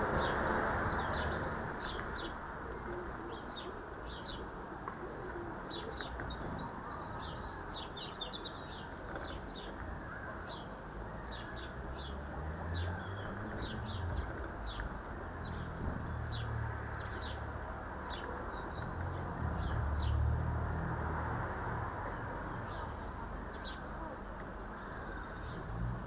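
Small garden birds chirping: short, high chirps about twice a second with a few brief twittering phrases, over a steady hiss and a low rumble.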